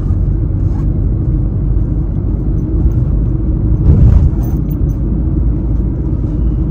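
Steady low road and engine rumble of a moving car, heard inside its cabin, with a brief louder swell about four seconds in.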